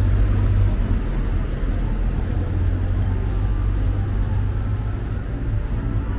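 Street traffic: a steady low rumble of motor vehicles going by, with faint voices in the background.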